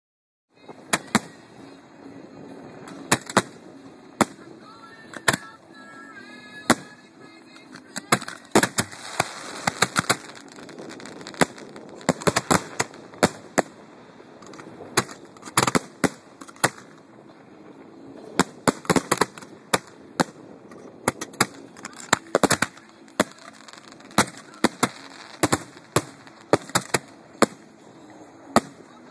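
Professional display fireworks firing at close range: sharp, loud reports in irregular volleys, at times several a second, over a steady background rumble.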